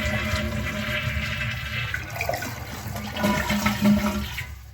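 Toilet being flushed with its angle stop shut off: water rushes out of the tank and down the bowl, then dies away about four and a half seconds in, with no refill from the supply line.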